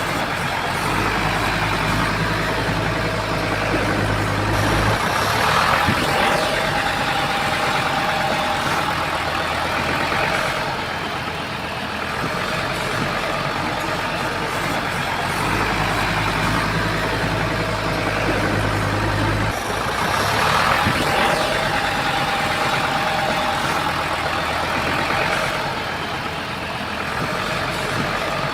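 Komatsu bulldozer's diesel engine working steadily, its note changing in a cycle that repeats about every fifteen seconds: a deep drone comes in for a few seconds, then a higher whine rises over it, twice.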